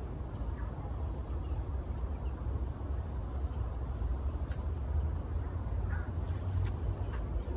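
A steady low rumble on the microphone, with a few faint croaks from a frog now and then.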